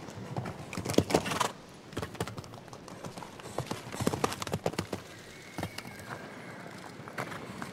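Hoofbeats of a show-jumping horse cantering on sand footing: an uneven run of dull thuds, with a louder cluster of strikes about a second in.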